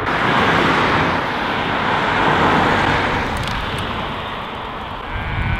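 A car passing on the road, its tyre and engine noise swelling in the first second and fading away over the next few seconds. A brief high-pitched whine near the end.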